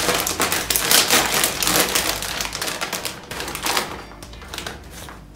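Plastic nacho-chip bag crinkling as it is pulled open and a hand rummages inside, a dense crackling that eases off about four seconds in.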